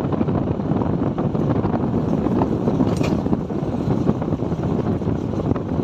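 Wind buffeting the microphone of a moving motorcycle, with a steady rumble of road and engine noise underneath. A brief hiss about halfway through.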